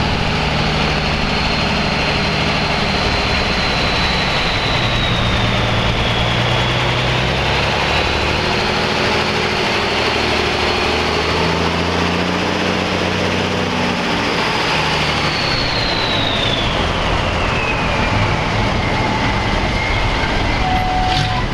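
Vintage US Army six-wheel-drive military trucks driving past, their engines running steadily, with a high whine that drops in pitch in the second half.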